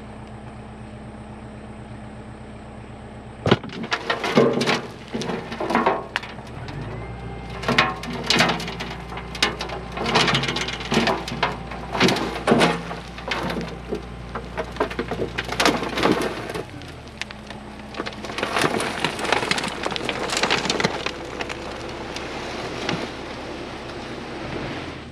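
Heavy earth-moving equipment with a diesel engine running steadily. A few seconds in, rocks and dirt start to crunch and clatter in a long run of sharp knocks, and the engine revs up under load for about ten seconds before settling back. Near the end comes a rushing hiss of loose material.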